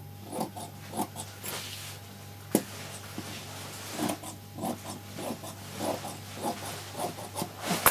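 Dressmaking shears cutting through sequinned net lace: short crunching snips about twice a second, with one sharp click about two and a half seconds in.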